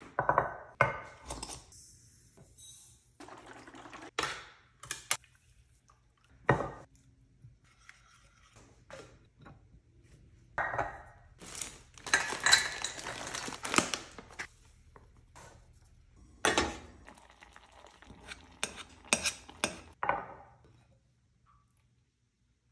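Kitchen preparation sounds: glass and stainless-steel dishes knocking and clinking as they are set on a wooden cutting board, and a spoon clinking against glass. About halfway through, a plastic bag of frozen berries rustles for a couple of seconds as it is opened.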